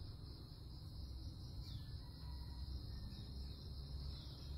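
Steady high-pitched insect drone over a low background rumble, with two faint short falling chirps, one about a third of the way in and one near the end.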